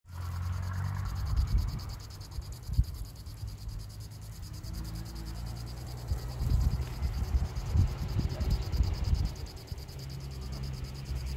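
Insects trilling steadily in a high, fast-pulsing chorus, with gusts of wind rumbling irregularly on the microphone.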